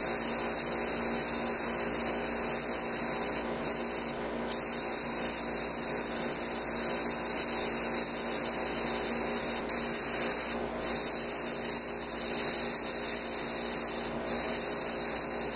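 Airbrush spraying paint in a steady hiss while spots are painted onto a fish skin mount. The hiss cuts out briefly about five times where the trigger is let off between spots.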